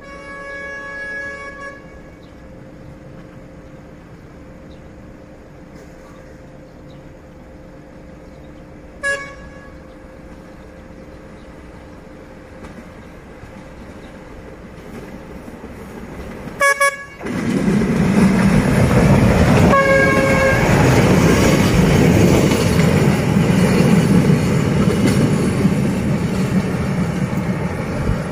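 GM-06 locomotive's horn sounding: one blast of about two seconds, a short toot about nine seconds in, a quick double toot around sixteen seconds, and another short toot near twenty seconds. From about seventeen seconds a loud steady rumble of noise sets in and runs under the last toot.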